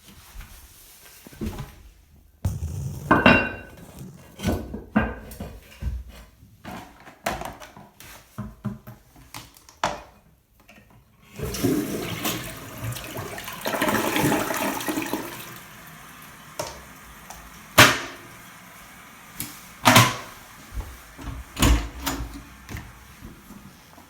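Glacier Bay dual-flush toilet flushing: a sudden rush of water about halfway through that runs for a few seconds, then settles into a quieter steady hiss of water. Sharp knocks and clicks come before and after the flush, the loudest sounds here.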